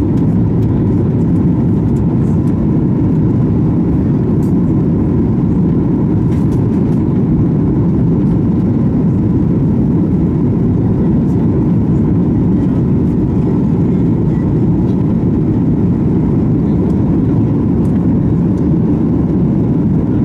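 Steady cabin noise inside a Boeing 737 MAX 8 in the climb, the deep, even roar of its CFM LEAP-1B engines and airflow heard from a window seat over the wing, with a faint steady tone above it.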